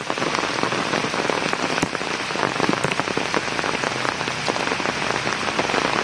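Heavy monsoon rain pouring steadily onto trees and muddy ground, with many separate drop hits close by.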